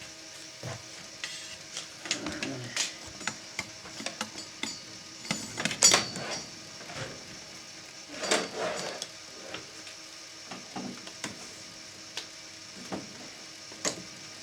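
Scattered clicks, scrapes and rattles from handling and working on an open Panasonic NV-G7 VCR, with a louder clatter about six seconds in and another burst of rattling near eight seconds, over a faint steady hum.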